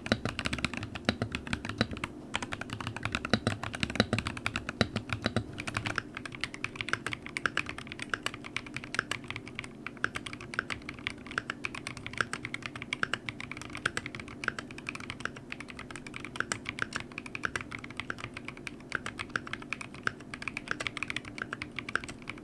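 Fast, continuous typing on a mechanical keyboard with deep 'thocky' keystrokes, many per second, over a steady low hum.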